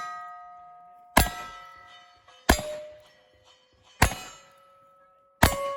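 Gunshots at a steady pace, four of them about a second and a half apart, each followed by a steel target ringing at its own pitch. The ringing shows each shot is a hit. The ring from a shot fired just before also carries into the start.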